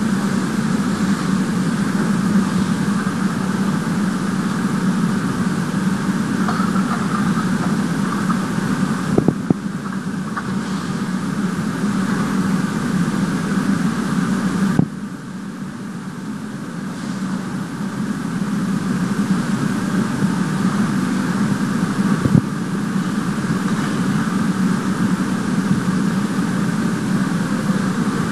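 Steady machine hum from an automatic welding line for refrigeration compressor shells. Three sharp clicks are spaced through it, and the hum dips briefly about halfway through before building back up.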